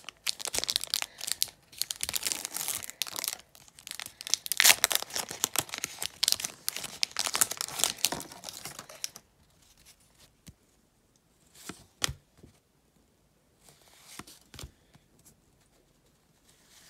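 The wrapper of a hockey card pack being torn open and crinkled, a dense crackling that lasts about nine seconds, then only a few soft taps and slides as the cards are handled.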